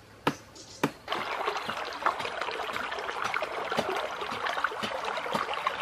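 Two sharp snaps within the first second, like branches breaking, then from about a second in a small stream trickling and babbling steadily over stones.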